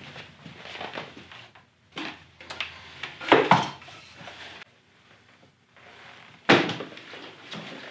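Clunks and knocks of a small engine being carried and set down on wooden sawhorses, the loudest about three and a half seconds in, with another sharp clunk about two-thirds of the way through.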